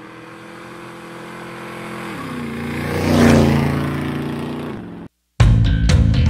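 A motorcycle engine passing by: it grows louder, its note drops in pitch about two seconds in, and it is loudest about three seconds in before fading and cutting off. After a brief silence near the end, music with a drum beat starts.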